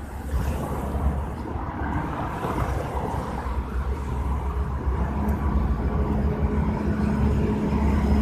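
Street traffic passing on a wet road, with low wind rumble on the microphone. About halfway through, a steady engine drone comes in and grows slowly louder as a car approaches.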